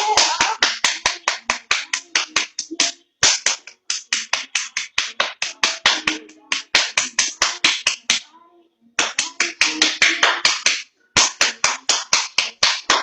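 Fast, rhythmic slapping made with the hands, about five or six sharp strikes a second. It comes in runs of a few seconds, broken by brief pauses.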